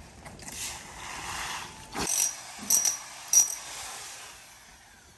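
Broken pool plaster and tile debris being handled: a soft scrape, then a knock about two seconds in and three short, sharp, high-pitched clinks of hard pieces striking each other.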